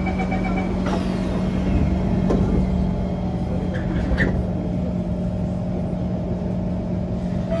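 Kawasaki C151 train doors closing: the last of the door-closing warning beeps, then the doors sliding shut with a couple of knocks, over the steady low hum of the train's onboard equipment.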